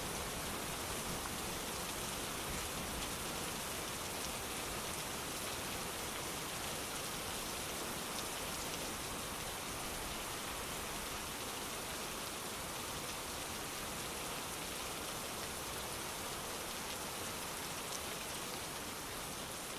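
Steady rain falling on a surface, a continuous even hiss with faint individual drop ticks.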